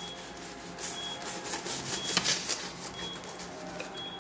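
Chef's knife sawing back and forth through a parchment-paper-wrapped burrito: a scraping, crinkling paper sound in repeated strokes, loudest around the middle.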